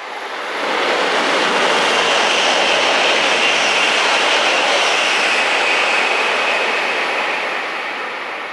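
E4 series double-decker Shinkansen passing through the station at high speed without stopping: a loud rushing of wind and wheels that builds within the first second, holds steady, and eases off near the end.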